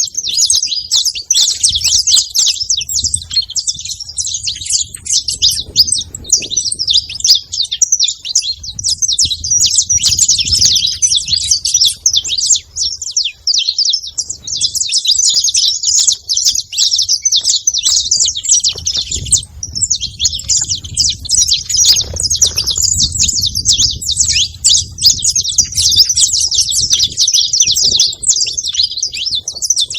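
A pair of saffron finches, male and female, chirping and singing together in a dense, rapid stream of high notes. It breaks off briefly about twenty seconds in.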